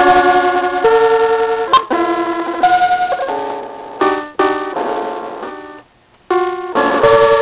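Circuit-bent electronic keyboard sounding random, glitchy chords that jump abruptly to new clusters every half second or so, each with a wavering pulse. There is a sharp click about two seconds in, and the sound dies away briefly just before a new chord starts near the end.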